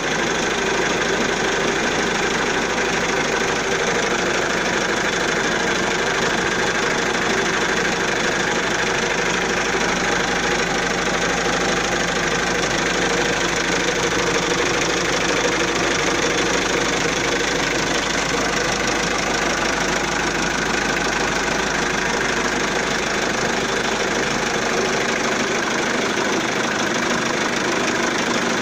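Hyundai Galloper 2.5 TDI's four-cylinder turbodiesel engine idling steadily, heard close up in the open engine bay.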